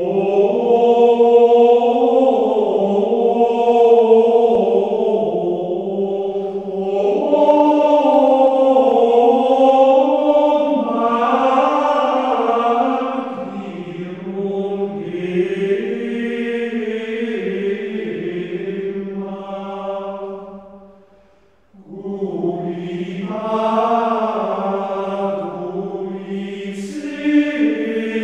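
Background music of chanted singing: voices holding long, slowly moving notes in drawn-out phrases, with a short pause about three quarters of the way through.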